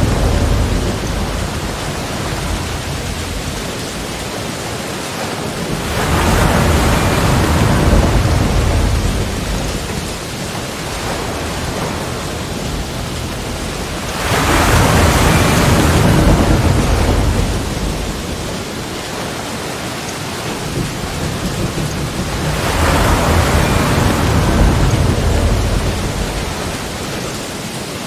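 Sea waves breaking and washing in, a deep rushing surge about every eight or nine seconds, three times, over a steady hiss of surf between them.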